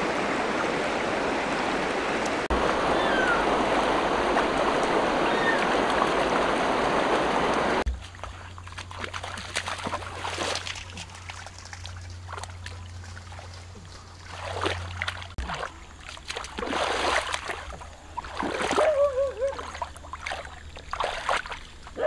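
Shallow river running steadily over rocks. About eight seconds in it gives way abruptly to quieter, intermittent splashing and sloshing as hands feel through shallow muddy water.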